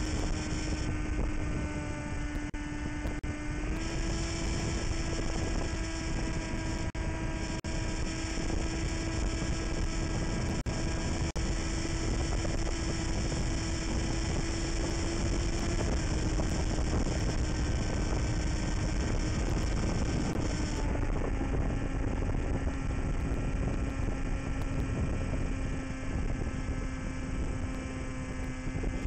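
Small FPV airplane's electric motor and propeller running in flight: a steady buzzing hum with overtones, with wind rush over the microphone. The pitch steps up about four seconds in and drops back twice later as the throttle changes.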